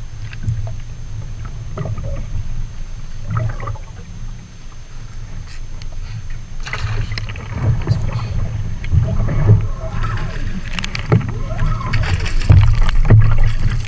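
Sea water slapping and sloshing against a fishing kayak's hull, with wind on the microphone; it grows louder and busier toward the end, when a hooked fish splashes at the surface beside the kayak.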